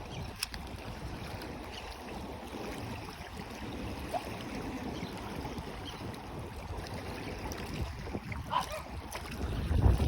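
Steady wind on the microphone and small waves washing on a sandy beach, with a couple of brief chirps.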